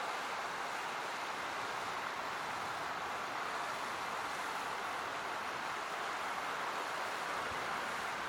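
Steady rushing of flowing river water, an even hiss with no let-up and no bird calls standing out above it.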